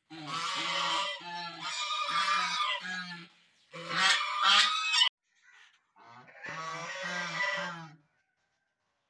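Domestic white geese honking in four runs of short, rapid honks with brief pauses between.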